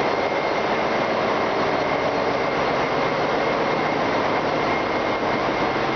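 Steady machinery din of a ship's engine room while the main engines are stopped: running auxiliary machinery and ventilation make an even, loud noise with a thin steady whine above it.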